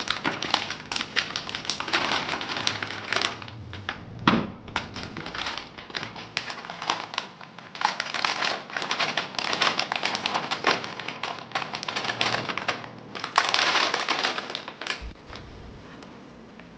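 Packaging being handled: dense crinkling and rustling in bursts with many sharp clicks, and one dull thump about four seconds in.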